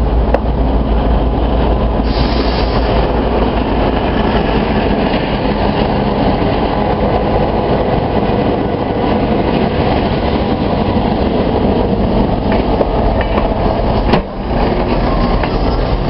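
St Marys Express excursion train running along the track, a steady loud rumble of wheels on rails. A single sharp knock comes near the end.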